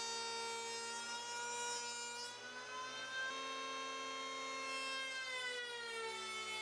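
Black & Decker electric hand planer, mounted upside down as a jointer, running with a steady whine while a wooden strip is fed over its cutterhead. The pitch rises a little about two and a half seconds in and drops back near the end.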